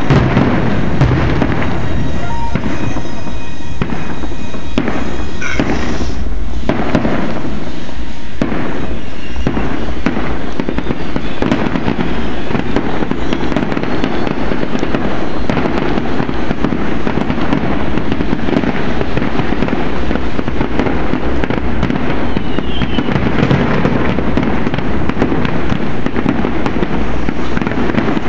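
Aerial fireworks display: a continuous run of overlapping booms and crackling bursts, loud throughout.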